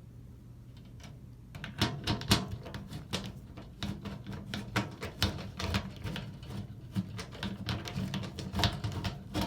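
Multi-bit screwdriver being handled: quick, irregular clicks and rattles of the hard plastic handle and its metal bits, starting about two seconds in, several clicks a second.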